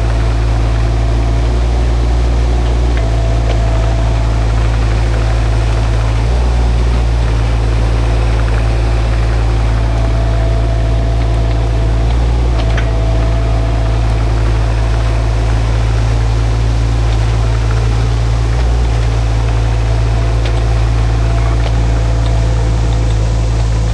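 Shantui mini excavator's diesel engine running steadily under work, its low drone shifting a few times and a faint whine coming and going.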